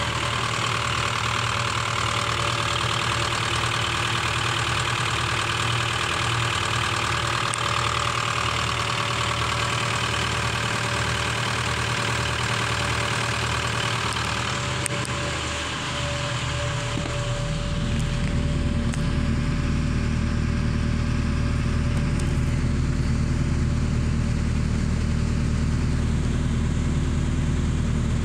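2.5-litre turbo diesel engine of an LDV V80 van idling steadily. A little over halfway through, its sound turns louder and deeper.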